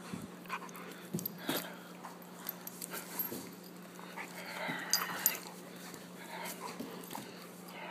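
Weimaraner panting and snuffling right at the microphone, with scattered clicks and knocks as its open mouth plays at the phone; the breathing is loudest about five seconds in.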